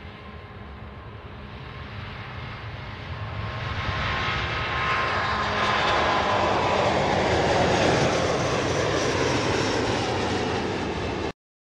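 Airbus A330neo's two Rolls-Royce Trent 7000 turbofans at takeoff thrust as the airliner rolls, lifts off and climbs past. The sound swells to a loud peak, then its whine falls in pitch as it passes, and it cuts off suddenly near the end.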